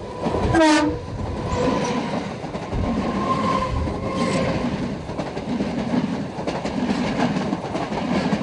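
Electric suburban local train passing close by: a steady rumble of the coaches with clickety-clack of the wheels over rail joints. About half a second in, a loud tone drops sharply in pitch, the tail of the train's horn as the front goes by.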